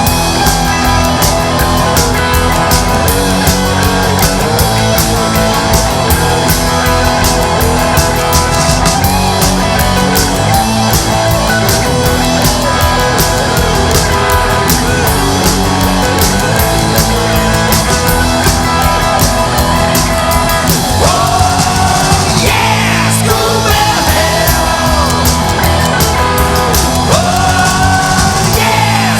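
Loud rock music from a full band, with a drum kit keeping a steady beat. Gliding high notes come in about three quarters of the way through and again near the end.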